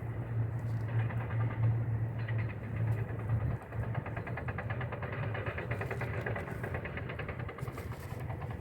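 A motor or engine running steadily, with a low hum and a fast, even buzz higher up that comes in about two seconds in.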